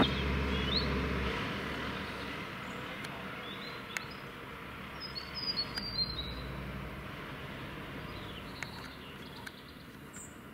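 Fire engines' diesel engines running with a low rumble as they move off slowly, fading away. Small birds chirp now and then over it, with no sirens.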